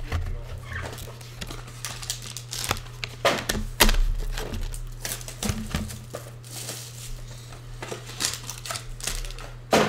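Foil trading-card pack wrappers crinkling and rustling as they are handled, with irregular sharp crackles and a louder one near the end.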